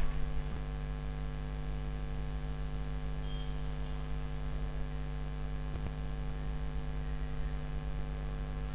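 Steady electrical mains hum: a low buzz with several higher tones stacked above it, unchanging throughout.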